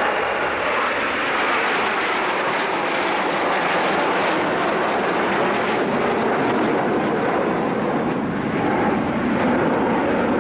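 Steady, loud jet noise from a formation of seven Aermacchi MB-339 jet trainers flying past overhead.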